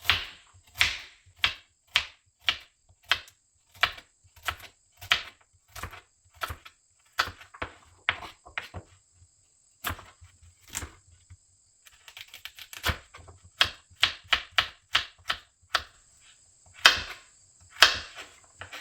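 Knife chopping raw carrots on a cutting board: a crisp knock with each cut, about two a second, thinning out briefly about halfway, with the loudest strokes near the end.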